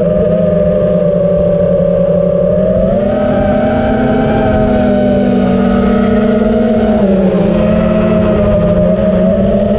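Freestyle drone's electric motors and propellers whining. The pitch rises about three seconds in, dips around seven seconds, then climbs again as the throttle changes, heard from on board.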